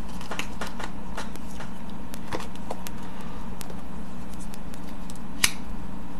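Computer running through a verbose boot: a steady low hum with scattered faint clicks, and one sharper click about five and a half seconds in.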